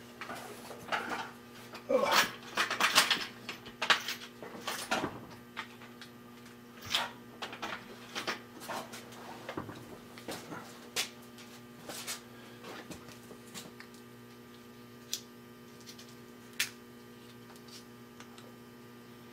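Small metal hand tools clinking and clicking as they are handled. There is a busy run of clatter in the first half, then a few single ticks, over a steady mains hum.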